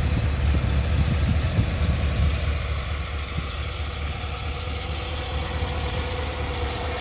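6.2-litre V8 of a 2019 GMC Yukon XL Denali idling steadily, a little quieter after about two and a half seconds.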